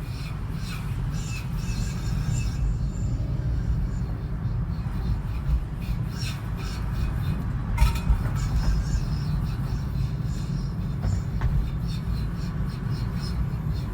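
Toyota Prius (30 series) making an abnormal metallic noise: irregular metallic clicks and scrapes over a steady low rumble, with one sharp, loud metallic clack about eight seconds in.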